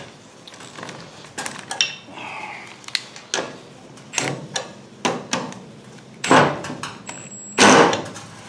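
Milwaukee Fuel stubby 3/8-inch cordless impact wrench snugging up the bolts on a PTO clutch in short bursts, the two loudest near the end, with small metal clicks and clanks in between.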